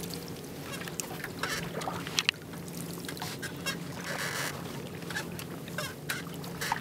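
Double-bladed kayak paddle dipping and pulling through calm water, with irregular splashes and drips from the blades, over a steady low hum.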